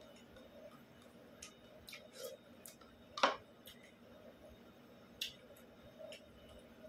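Quiet eating-by-hand sounds: scattered small clicks and taps as fingers work rice on a ceramic plate, with one louder click a little over three seconds in.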